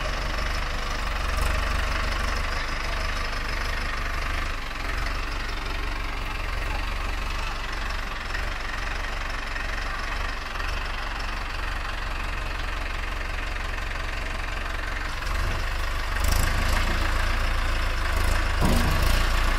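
Mahindra 585 DI tractor's diesel engine running steadily, a little louder from about 16 seconds in.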